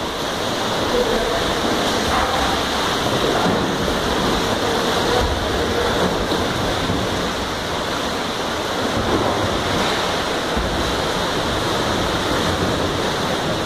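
Steady wash of splashing, churning water from several kayaks paddling around in an indoor pool.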